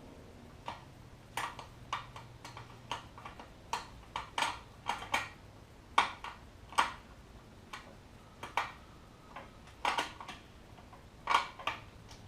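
Hand tools and small metal parts clinking and tapping against each other in irregular single knocks, about one or two a second, during work on a scooter's ignition and wiring.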